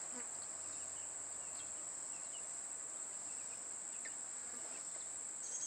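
Insects, most likely crickets or cicadas, making one steady high-pitched drone. A second, slightly lower pulsing insect sound joins in near the end.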